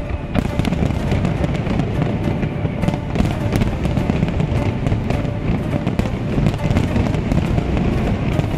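Large aerial fireworks display: many shells bursting at once, with dense crackling and popping over a continuous deep rumble. Music plays along with it.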